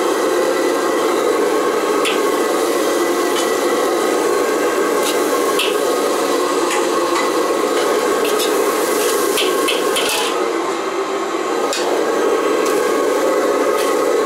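Metal ladle scraping and clinking against a wok as vegetables are stir-fried, over the steady rushing noise of a commercial gas wok burner.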